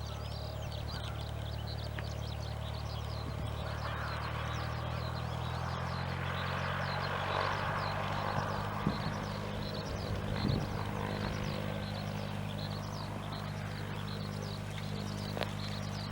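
Cessna 172S Skyhawk's four-cylinder Lycoming IO-360 engine and propeller at takeoff power, a steady low drone with a wash of propeller noise that swells to a peak about halfway through. Many short high chirps run throughout.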